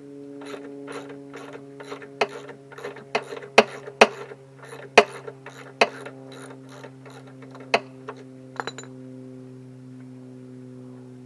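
Ratchet wrench clicking through short, uneven strokes, a few clicks a second with several sharper knocks, stopping about nine seconds in. A steady hum runs underneath.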